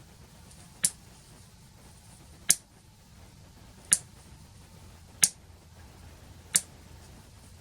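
A 1932 power switch clicking as it is toggled back and forth: five sharp clicks about a second and a half apart. The switch is being exercised to work freshly sprayed DeoxIT contact cleaner into its contacts.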